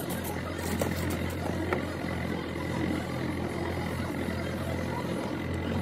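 A steady low mechanical hum, like an engine or machine running, with a couple of faint clicks about a second and a second and a half in.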